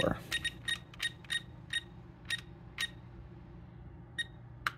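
Short, irregular ticks from the scroll wheel of a ToolkitRC M6D charger turned step by step, about a dozen in the first three seconds, then a pause and a couple more near the end, as a calibration value is stepped down.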